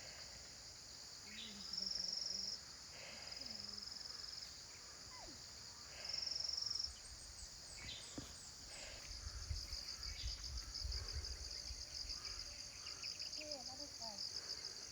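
Insects chirping: a steady high-pitched shrill chorus, with a louder pulsing insect call that comes in twice in the first seven seconds, and a fast trill that runs from about nine seconds on.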